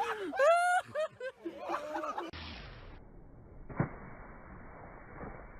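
High-pitched laughter and shrieks in quick repeated bursts, cut off abruptly about two seconds in; then a faint hiss with a single thump.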